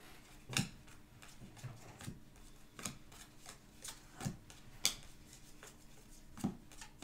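Panini Contenders football trading cards being flipped through by hand, each card slid off the stack with a short, sharp flick, about eight times at an uneven pace.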